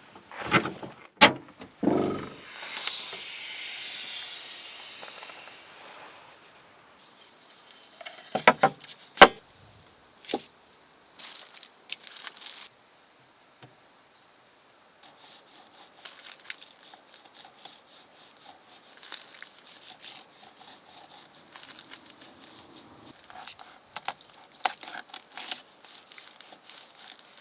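Handling noises: a few sharp knocks and clicks, a brief hiss a few seconds in, then scattered light clicking and crinkling.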